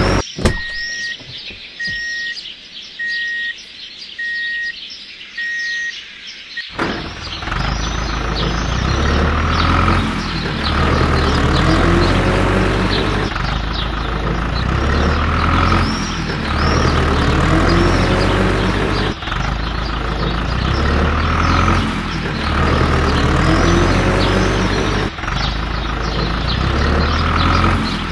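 A row of short, evenly spaced high beeps, about eight in six seconds. Then a loud rhythmic sound with a repeating low bass pattern cuts in suddenly.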